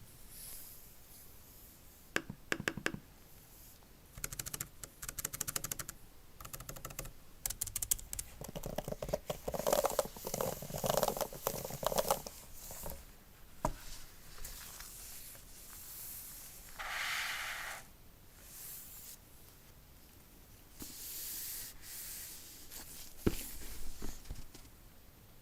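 Typing on an Apple Magic Keyboard for iPad Pro: several short runs of quick key clicks, with handling rustle between them.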